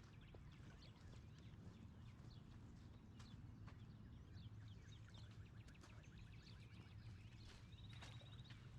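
Near silence: a faint low hum with faint, scattered high chirps.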